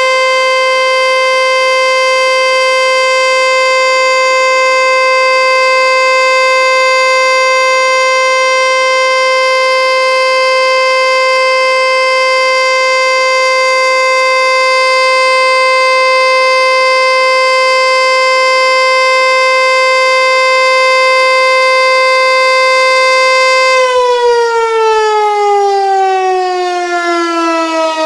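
American Signal Corporation Tempest T-121 outdoor warning siren sounding its steady alert tone for a test. About 24 seconds in the tone stops being held and its pitch slides steadily down as the siren winds down.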